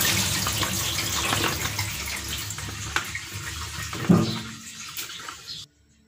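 Soaking water and cut potato strips poured from a plastic bowl into a plastic colander over a sink, the water splashing and running off as the fries are drained. A short knock comes about four seconds in, and the pouring cuts off abruptly shortly before the end.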